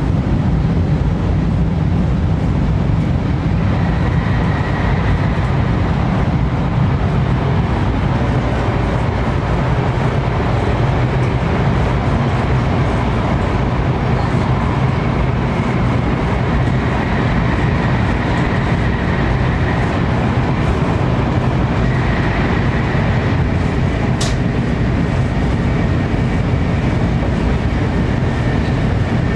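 Steady running noise of a 500 series Shinkansen heard from inside the car: a continuous deep rumble and rush. A single short click comes about three-quarters of the way through.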